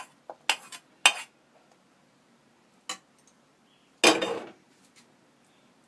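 Metal spoon and steel kitchen utensils clinking as salt and ground spices are added to mashed potatoes: a few short clinks, then a louder clatter about four seconds in.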